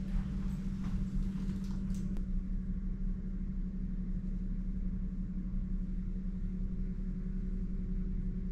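Steady low mechanical hum holding one constant low tone. A few light clicks come in the first two seconds.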